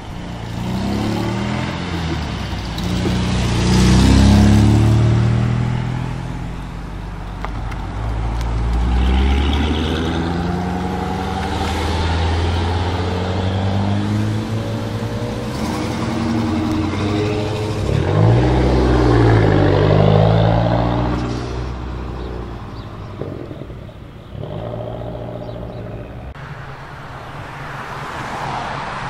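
Cars driving past one after another, their engines accelerating as they go by, so the engine note rises and falls with each pass; the loudest pass comes about four seconds in.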